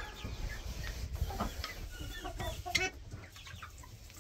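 Hens clucking, a string of short calls with a louder one near three seconds in, over the scrape and shake of a metal sifting scoop working through coffee-ground bedding.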